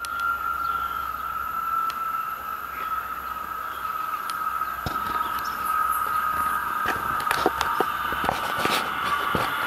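Light rail train approaching from a distance on an electrified line: a steady high-pitched whine, with scattered clicks in the second half.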